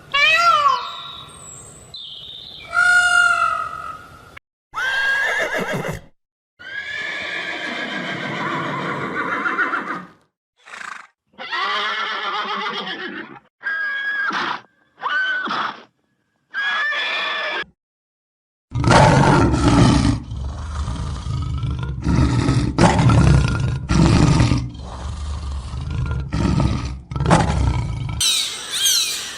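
A series of recorded animal calls of several different kinds, one after another with short gaps between them. About two-thirds of the way in, a long, loud, deep call with a pulsing rhythm takes over, and quick sweeping calls begin near the end.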